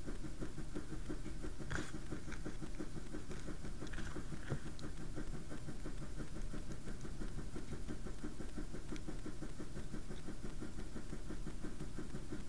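Steady background noise with a fast flutter, and a few faint clicks and rustles of small plastic toy parts and a sticker sheet being handled, about 2 s and 4 s in.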